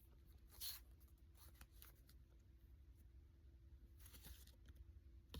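Near silence: room tone, with a couple of faint, brief rustles of trading cards being handled, about half a second in and again around four seconds.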